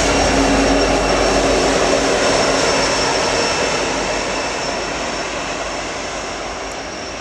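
BNSF diesel-electric locomotive passing, its engine running with a steady low hum and a thin high whine, fading gradually from about halfway through as it moves away.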